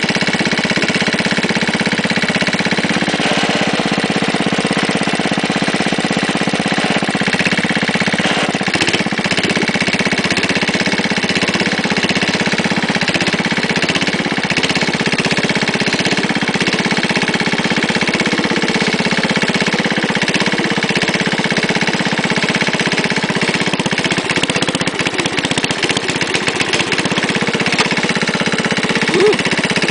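Wheel Horse garden tractor's engine running steadily as the tractor is driven.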